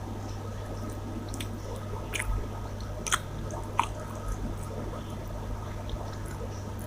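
A person chewing a mouthful of rice and chicken masala, with wet squishing sounds and a few sharp clicks, over a steady low hum.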